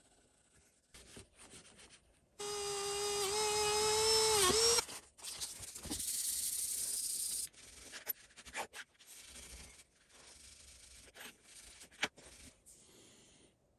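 A small handheld power tool runs for about two seconds with a steady high whine that dips in pitch just before it stops. A harsh hissing, grinding noise follows for a couple of seconds, then scattered clicks and light scraping of metal parts being handled.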